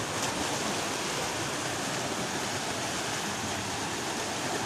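Waterfall pouring into a rocky plunge pool, a steady, unbroken rush of falling water.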